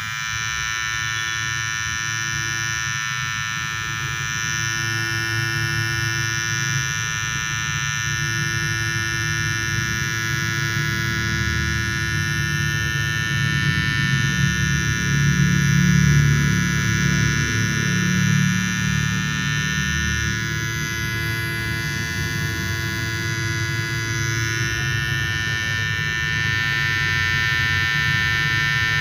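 Electric detailer hair trimmer running with a steady, high-pitched buzz, getting a little louder around the middle.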